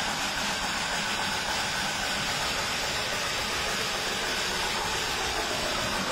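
Darjeeling Himalayan Railway narrow-gauge steam locomotive running, with a steady hiss of steam and train noise.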